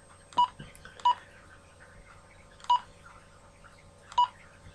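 Midland G7 PMR446 walkie-talkie giving short key beeps as its buttons are pressed to step through the menu settings: four brief single-tone beeps, unevenly spaced.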